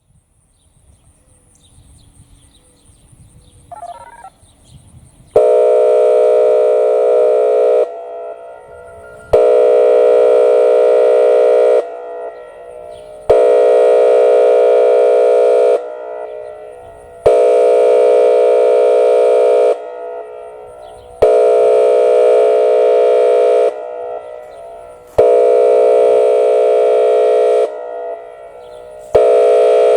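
Whelen WPS-2805 electronic outdoor warning siren sounding its Air Horn signal at 456 Hz, which starts about five seconds in. It comes as loud horn blasts of about two and a half seconds, separated by gaps of about a second and a half, repeating about every four seconds.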